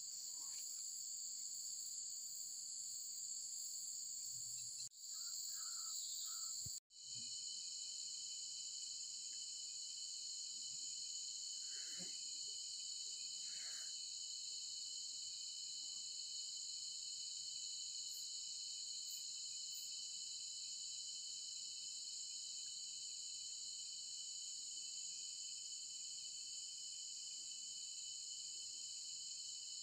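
Steady high-pitched chorus of crickets and other night insects, with two brief dropouts about five and seven seconds in.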